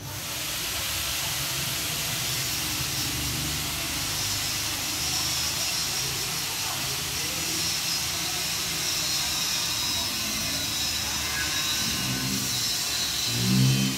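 A steady, even hiss that starts suddenly and holds unchanged. Near the end come a few brief low vocal sounds, the last one louder.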